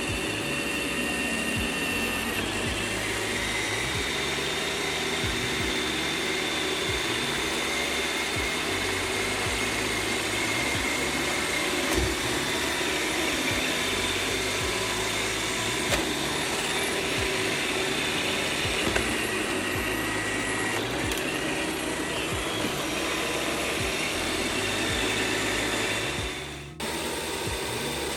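iRobot Roomba 690 robot vacuum running as it cleans: a steady, quite loud whirring with a high whine on top and a few brief knocks. The sound dips briefly near the end.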